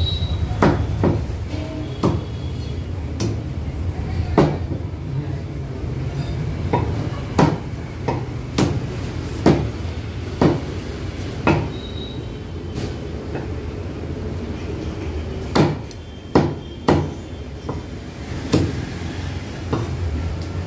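Meat cleaver chopping a country chicken into pieces on a thick wooden log chopping block: sharp chops at an uneven pace, roughly one a second with short pauses, over a steady low hum.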